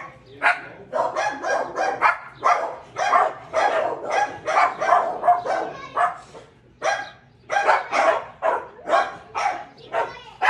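Dog barking over and over, about two short barks a second, with a brief pause a little past the middle.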